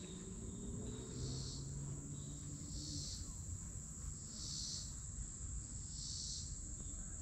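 Insects calling from the riverside woods: a steady high-pitched drone with a louder pulsing call repeating about every second and a half. A faint low hum fades out in the first few seconds.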